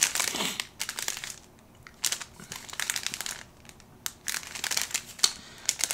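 Plastic wrapping of a packaged convenience-store sandwich crinkling as it is handled, in irregular crackles with a couple of short pauses.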